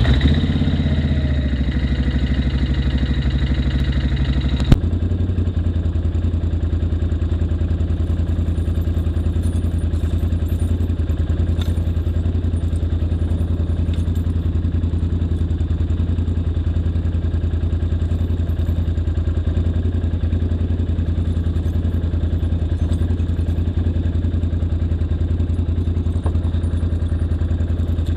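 Can-Am Outlander ATV engine idling just after starting. About five seconds in there is a sudden click and its note changes, and then it settles into a steady idle. Faint metallic clinks of steel tyre chains being handled come through over it.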